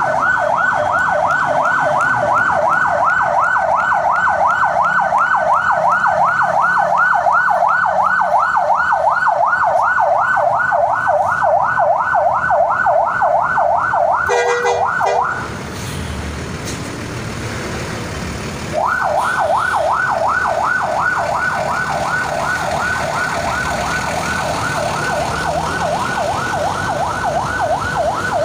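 Electronic vehicle siren in a fast yelp, rapid rising wails several a second. It cuts out about halfway through after a brief different tone, leaving a few seconds of vehicle and crowd background, then starts up again and runs on.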